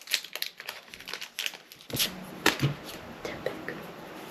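Booster pack's foil wrapper being torn open and crinkled by hand: a run of quick, irregular crackles and rips.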